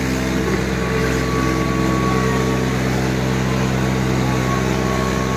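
Tractor diesel engines, a Swaraj 855 and a Kubota 5501, running hard at a steady speed under heavy pulling load, a loud, even engine note that holds without a break.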